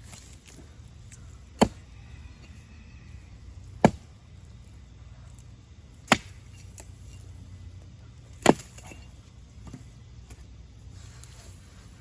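Axe chopping into a felled pine: four single strikes spaced a couple of seconds apart, delimbing the trunk.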